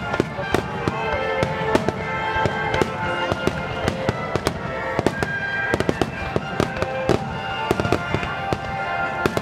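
Fireworks bursting in quick succession, a rapid run of sharp bangs several a second.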